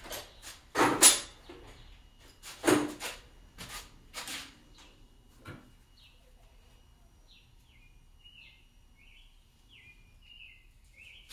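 Several loud knocks and clatters of tools against metal during engine teardown work, the loudest about a second in, over the first half; then faint, quick bird chirps.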